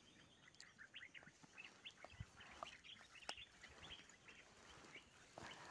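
Near silence, with faint, scattered short chirps in the background.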